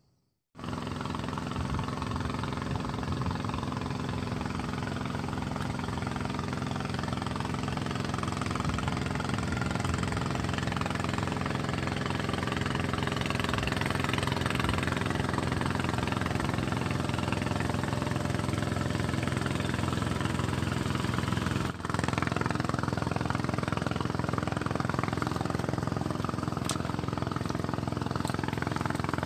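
A small engine running steadily at a constant speed, with a brief break about 22 seconds in.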